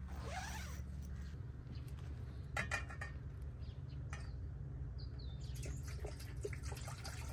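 Small clicks and knocks from a plastic water bottle and camp cookware being handled, the loudest a short ringing clink about two and a half seconds in, over a steady low rumble.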